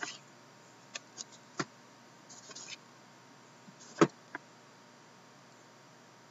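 Sealed Upper Deck Ultimate hockey card boxes handled on a table: a few light taps and knocks, a brief rustle about two and a half seconds in, and a louder knock about four seconds in, with a lighter one just after.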